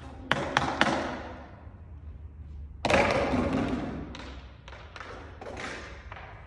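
Knocks and thuds from a bin and cleaning gear being handled on a wooden floor, echoing through a large hall. There are three sharp knocks in the first second, a heavy thud about three seconds in that rings on, then lighter taps.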